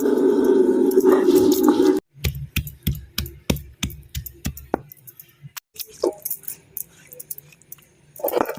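A dog whining for about two seconds, then the sound cuts off suddenly. After it come a string of short wet clicks and smacks of someone eating rice and curry by hand and chewing, getting fainter toward the end.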